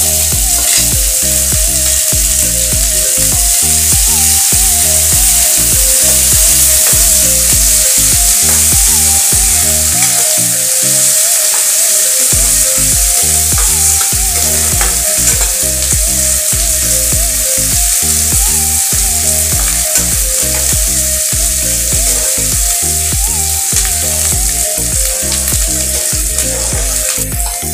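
Chopped onion and green capsicum sizzling steadily in hot oil in a pan, stirred now and then with a spatula. Background music with a repeating beat plays underneath.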